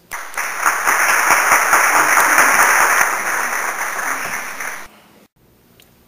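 Applause, many hands clapping at once in a dense, steady patter that cuts off abruptly about five seconds in.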